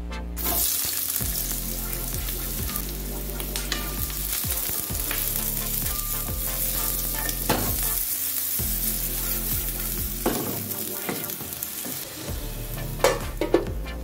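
Sliced onions sizzling in hot oil in a frying pan, starting about half a second in as they go in, and stirred with a wooden spatula. A couple of sharp knocks near the end.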